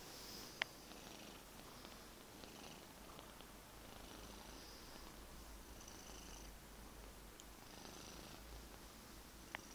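Domestic cat purring faintly and steadily, close to the microphone, in slow waves about every two seconds. A sharp click about half a second in, and a smaller one near the end.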